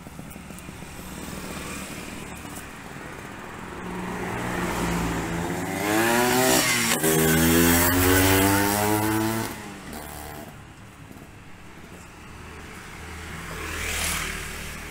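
Yamaha V80 two-stroke moped with a racing exhaust riding past: its engine grows louder, peaks as it passes about six to nine seconds in, and drops in pitch as it moves away. The engine is still cold, which the owner says makes it stutter. Near the end another vehicle passes more faintly.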